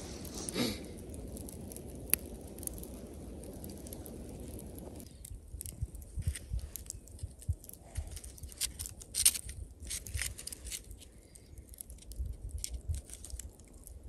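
A campfire under metal skewers of shashlik: irregular sharp crackles and clicks from the embers and the metal skewers as they are handled, after a steady low rushing noise that stops about five seconds in.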